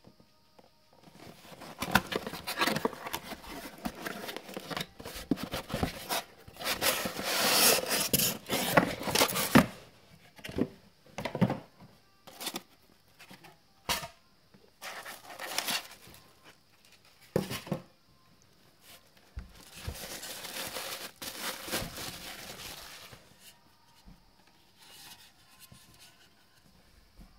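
Cardboard and plastic packaging handled while unboxing a spiral fluorescent bulb. There are rustling and tearing sounds for the first ten seconds or so, then a string of short knocks and scrapes, then a few seconds of plastic wrap rustling as the bulb is unwrapped.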